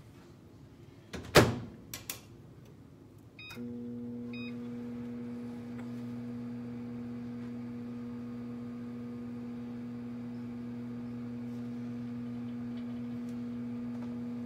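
Microwave oven door shut with a loud clunk and a second lighter knock, then two keypad beeps, and the microwave starts running with a steady hum.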